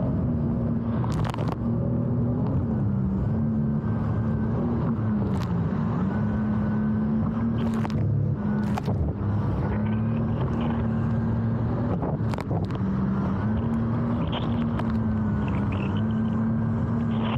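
Jet ski engine running at speed with a steady note that dips briefly twice, about three and six seconds in, as the throttle eases. Several sharp knocks cut through it, the hull slamming into rough waves.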